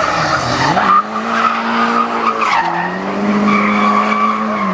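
Drift car's engine revving hard and held high while its rear tyres spin and skid sideways with a screech. The revs climb about a second in, dip briefly about halfway through, then rise and hold again.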